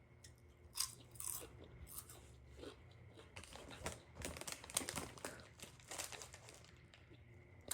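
Close-up chewing and crunching of kettle-cooked potato chips: scattered crunches at first, then a dense run of crunching in the middle.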